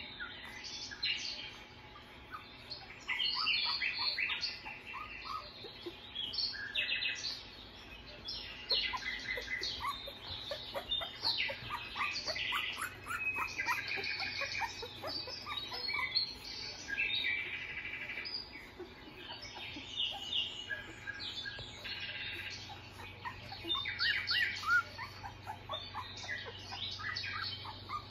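Newborn Australian Shepherd puppies squeaking while they nurse, a busy, continuous run of short, high chirping squeaks.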